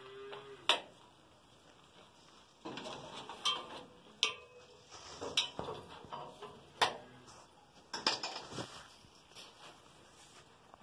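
Coil of wire being handled and uncoiled: light metallic clinks and scraping, with about six sharp ticks at irregular intervals.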